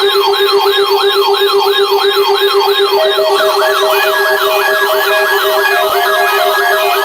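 Electronic siren sounding in a fast yelp: a rising sweep repeats about two and a half times a second over a steady tone. About three seconds in, a second yelping siren and pulsed beeping tones join, overlapping the first.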